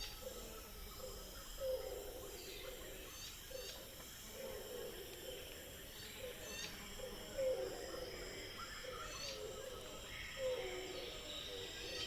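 Jungle ambience: a steady high insect chorus, with low calls repeating every second or two and short rising chirps scattered over it.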